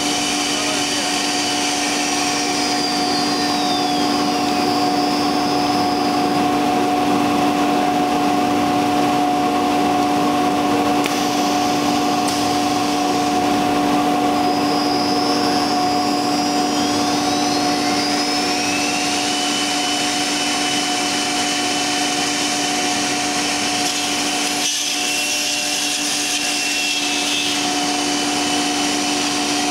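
Twin-spindle CNC router running with its dust-extraction hoses drawing air: a steady mechanical hum under a high whine that glides down a few seconds in, then rises again past the middle and holds.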